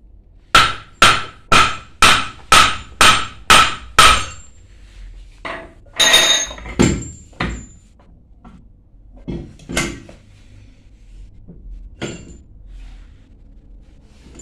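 Hammer blows on metal pump parts: eight sharp, ringing strikes about two a second, followed by a few scattered clanks and knocks.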